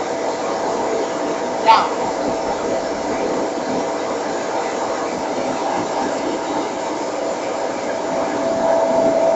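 Leaf blower running steadily, a constant rushing noise with a steady whine, blowing into an air-conditioning blower motor used as a wind generator. A brief sharp sound cuts in about two seconds in.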